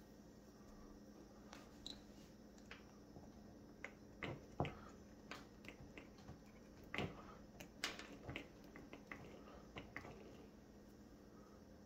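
Faint, scattered clicks and taps of clear plastic bleeder tubing and a plastic master-cylinder reservoir being handled as the tubes are pushed onto the outlet fittings. The taps come in irregular bunches, louder a few seconds in and again past the middle.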